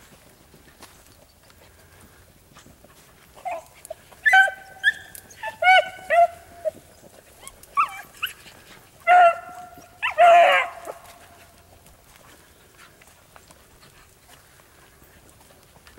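Rabbit-hunting hounds giving tongue in the brush while running a rabbit: a run of about a dozen short, high yelps and barks between about four and eleven seconds in, ending in one longer drawn-out bay.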